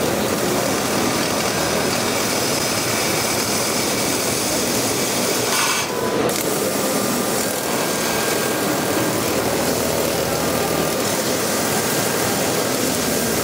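Fiber laser cutting machine cutting sheet steel: a steady hiss and machine noise that breaks off briefly about six seconds in.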